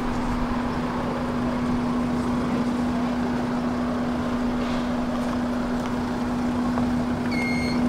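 Steady electrical hum from a Warsaw tram standing at a stop, over the noise of cars passing through the junction. A short high beep sounds near the end.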